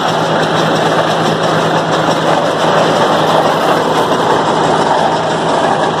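Tractor-driven round baler running steadily while baling paddy straw: a continuous dense mechanical noise over a steady low engine hum.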